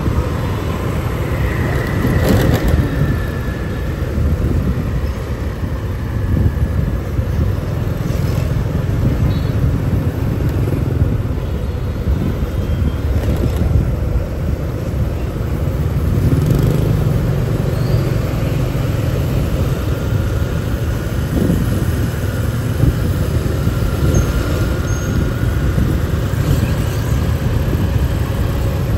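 Riding a motorbike through city traffic: steady engine and road noise with a heavy low rumble, surrounded by other passing motorbikes and cars.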